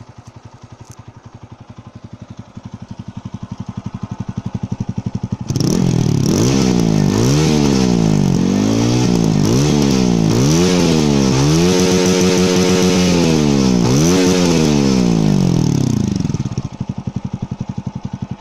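TVS Apache RTR 200's single-cylinder four-stroke engine through its stock exhaust, idling with quick even pulses that grow louder. About five seconds in it is revved through a series of throttle blips, its pitch rising and falling, one held high for a second or so. It drops back to idle near the end.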